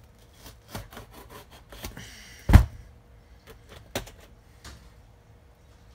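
Hobby knife cutting and scraping through the tape on a cardboard parcel, with clicks and rustles as the box is handled. One loud thump comes about two and a half seconds in.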